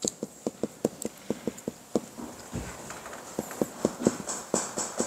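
Marker writing on a whiteboard: a quick run of short squeaks and taps, several a second, as the pen strokes across the board.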